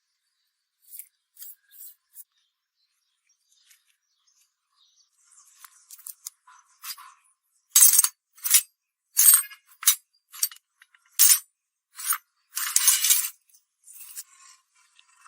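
About seven rough, scratchy scraping strokes on metal in quick succession, louder from about halfway in, after a few faint scratches at the start.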